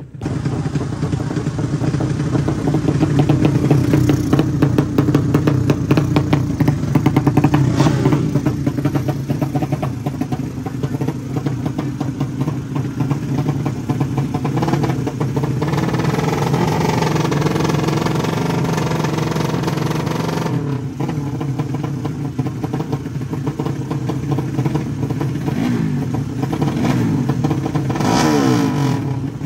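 Drag-race motorcycle engines running loud and revving up and down several times, the pitch rising and falling with each rev.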